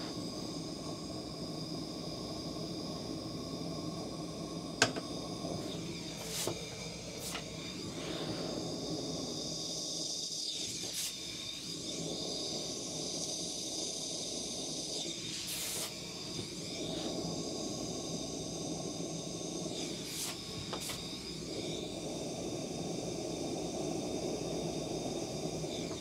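Handheld gas torch flame hissing steadily as it heats a copper water pipe stub-out to remelt the leftover solder so it can be wiped off. There are a few brief clicks over the hiss.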